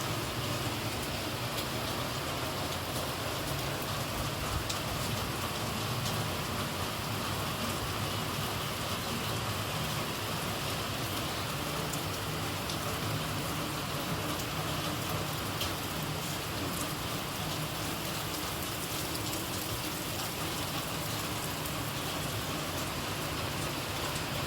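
Steady rainfall, an even hiss of rain on surfaces with scattered individual drop ticks.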